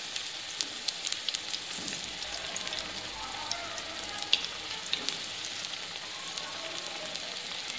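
Lentil vadas deep-frying in hot oil in a steel kadhai: a steady sizzle with scattered pops and crackles.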